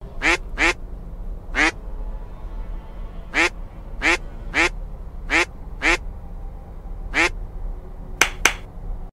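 Cartoon duck quacking: about eleven short calls, each falling in pitch, spaced unevenly with some in quick pairs, over a steady low hum.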